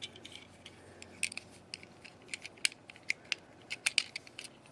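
Irregular small metallic clicks and taps as an antique brass Keen Kutter padlock and its keys are handled, with the loose shackle knocking against the body.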